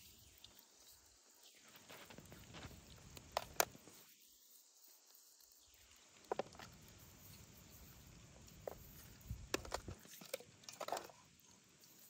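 Raw chicken pieces being handled and rubbed with spices over a metal tray: a few faint, scattered taps and soft handling noises.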